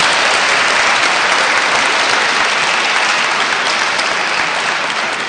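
A large audience applauding loudly, the clapping easing off slowly toward the end.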